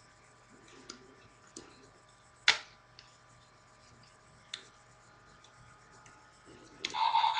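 Hard plastic clicks and snaps of a Transformers Starscream jet toy's parts being folded by hand, a handful of separate clicks with one sharp loud snap about two and a half seconds in. Near the end a louder sound lasting under a second breaks in.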